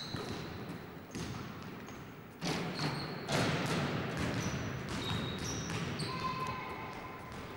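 Basketball bouncing on a hardwood gym floor, thudding irregularly and echoing around the hall, with a few short high squeaks.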